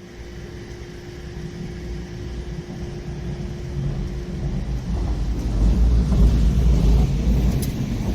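A train passing at a level crossing: a low rumble builds and is loudest about six to seven seconds in. A steady hum with one tone fades out around the halfway point, and a few faint sharp ticks come near the end.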